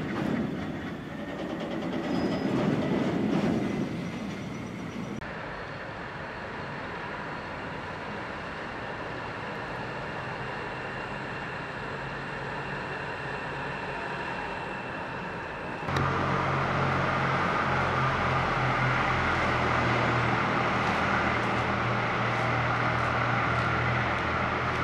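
Diesel locomotive of a freight train, a WDG 3A, with its engine running steadily: a low, even hum over a constant hiss. It gets suddenly louder about two-thirds of the way in.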